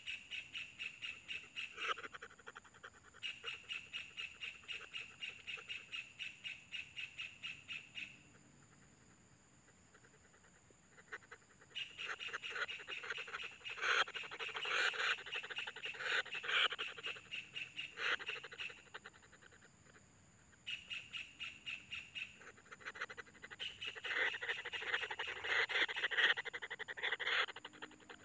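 Kingfisher nestlings calling from the nest burrow in fast, even series of calls at about five a second, twice falling silent for a few seconds. These are typical of begging chicks.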